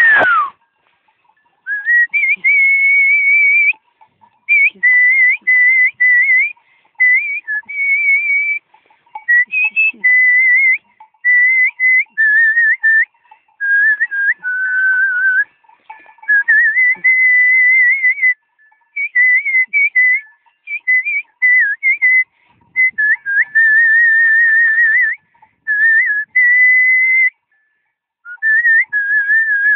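A person whistling a melody by mouth in short warbling phrases with brief pauses between them. It opens with one quick falling whistle.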